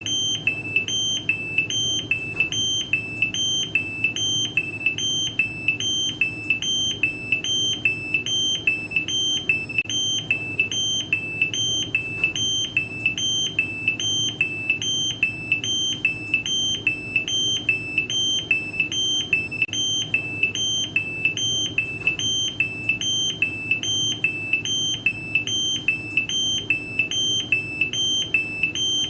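Electronic error alarm: a high two-tone beep that alternates between two close pitches about twice a second, repeating without a break over a low steady hum.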